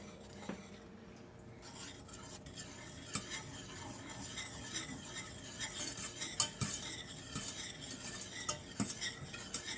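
A spoon stirring baking soda into milk curds to make glue, scraping and clinking against the bowl. The strokes grow busier from about two seconds in.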